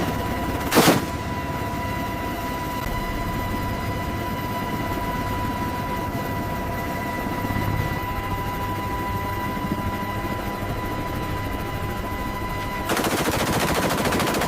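Gatling gun firing in long continuous bursts, a dense rapid rattle with a steady high tone running under it. A single loud crack comes just under a second in, and the firing gets louder for the last second and a half.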